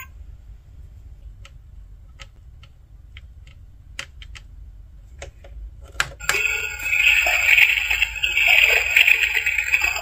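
A few small sharp plastic clicks in a quiet stretch. About six seconds in, the WASH button is pressed and the battery-powered toy washing machine starts up and keeps running with a dense, steady sound.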